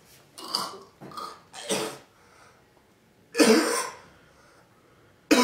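A man coughing and gagging in short hacking bursts, trying to bring up something stuck in his throat. There are three quick coughs, then a louder one about three and a half seconds in, and another at the very end.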